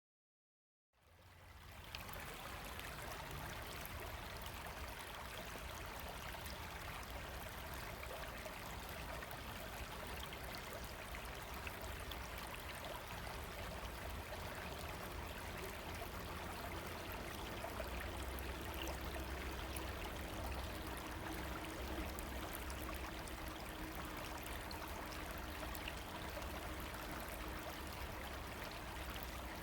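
River running: a steady rush of flowing water that fades in about a second in.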